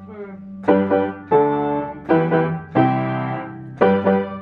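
Keyboard piano chords played one after another, about five in all, each struck and left to ring out.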